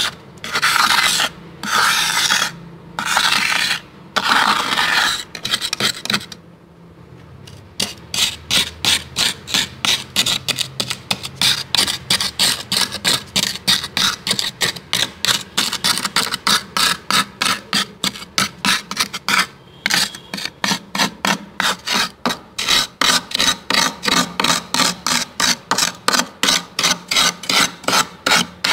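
A white plastic scraper dragging through thick, soft freezer frost. It makes a few longer scraping strokes, goes quiet for a moment about six seconds in, then scrapes in quick short strokes, about two to three a second.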